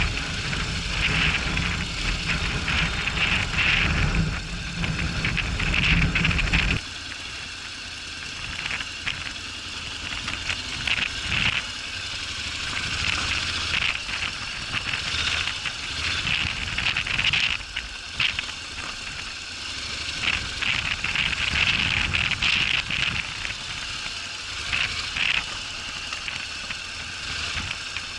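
Honda NC750X parallel-twin motorcycle on an off-road ride, engine running under wind and rattling noise on the action camera. The low engine rumble drops away suddenly about seven seconds in, leaving a hissing, crackling rattle.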